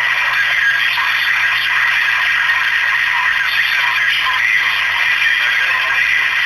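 CB radio receiver audio: a steady hiss of static with faint, garbled, warbling sounds in it.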